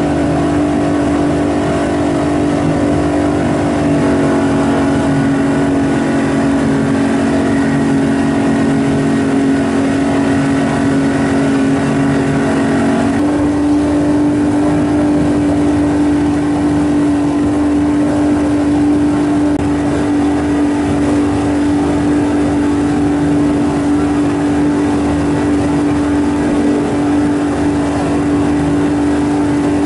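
Motorboat engine running steadily under way, heard from aboard. Its pitch shifts slightly about four seconds in and steps up a little about thirteen seconds in.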